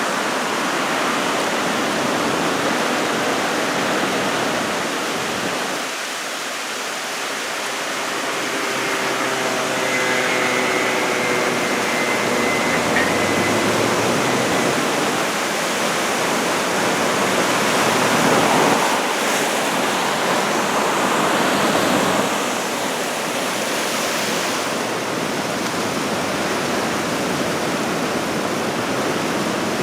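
Ocean surf breaking and washing on the shore in a heavy typhoon swell: a continuous rushing roar that swells louder twice in the second half as bigger waves break.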